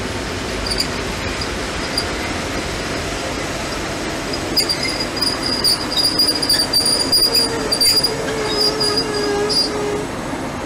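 ST44 (M62-type) diesel locomotive hauling a freight train slowly past at close range, its engine and running gear running steadily. About four and a half seconds in, a high-pitched metallic wheel squeal sets in with scattered clicks. It lasts about five seconds, then fades.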